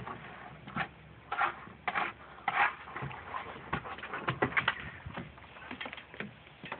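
Dog sniffing in short, sharp bursts close to the ground, with a run of quick clicks and snaps in the middle as it noses and mouths at a grasshopper.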